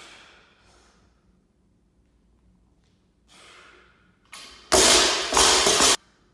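A weightlifter's heavy breathing: two breathy exhalations, then two much louder, harsh bursts of noise of about half a second each, starting and stopping abruptly, near the end.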